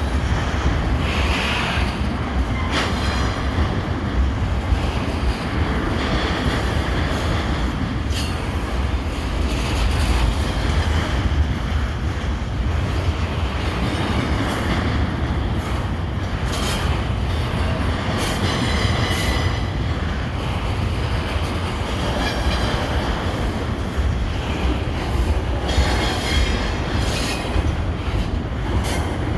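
Canadian Pacific freight train rolling through a rail yard: a steady rumble of wheels on rail, with scattered clicks from rail joints and brief high squeals from the wheels.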